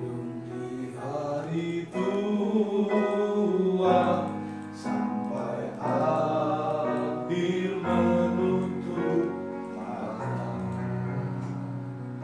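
A slow song: a voice singing over keyboard accompaniment, the low chord changing about every two seconds.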